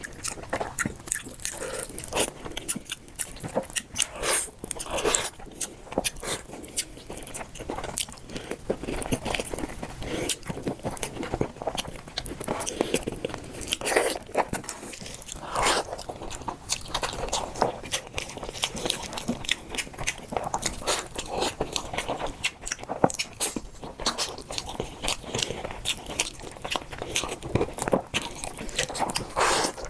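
Close-up eating sounds of chicken and rice: irregular crunchy bites and wet chewing, with occasional scrapes.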